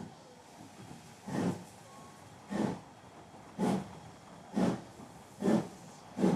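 Steam locomotive setting off: loud exhaust chuffs over a soft steady hiss, about seven of them, coming gradually faster as the engine gathers speed.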